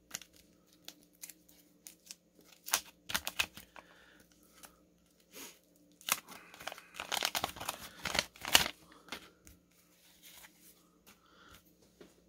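Paper wax-pack wrapper of a pack of baseball cards being torn open and crinkled by hand. It comes as irregular rustles and sharp rips, busiest and loudest from about six to nine seconds in.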